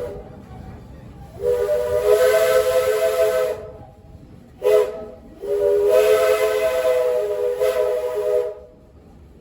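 Multi-note chime steam whistle of the Walt Disney World Railroad steam locomotive Walter E. Disney, blown as a long blast, a short blast and another long blast, with steam hissing under each note. Following the long blast that ends just as this starts, the pattern matches the standard long-long-short-long grade-crossing signal.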